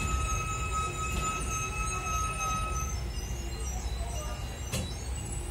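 Milan Jumbo tram running, heard from inside the car: a steady low rumble with a steady high-pitched whine over it that stops about three seconds in, and one sharp knock near the end.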